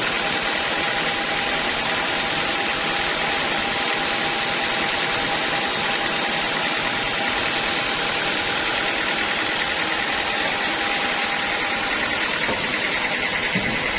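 Sawmill machinery running steadily: a constant mechanical din with a steady high whine over it.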